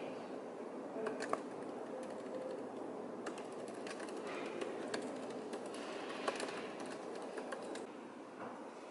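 Typing on a laptop keyboard: light, irregular key clicks in short flurries over a steady room hum, stopping shortly before the end.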